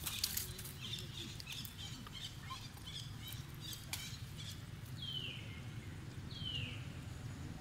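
Two short high whistled calls, each falling in pitch, about a second apart, after a scatter of faint chirps and light clicks and rustles.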